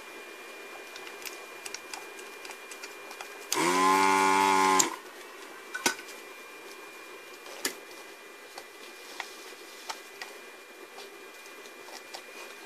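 Electric desoldering gun's vacuum pump buzzing for about a second as it sucks molten solder out of a circuit-board pad, then a couple of sharp clicks. A faint steady high-pitched whine runs underneath.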